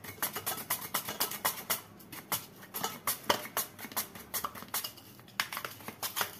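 Peeled potato being slid back and forth over the blade of a red plastic hand slicer, a quick run of short scraping strokes, several a second, as round slices drop onto a steel plate beneath.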